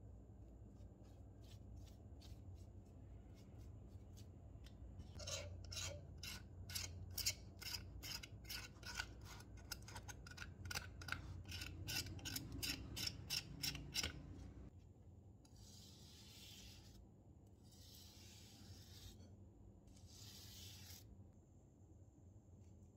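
A pointed metal pick scrapes softened rust and paint off a small rusted metal part of a scale-model car in quick repeated strokes, about two to three a second, starting about five seconds in. It stops after roughly nine seconds, and three short hisses follow.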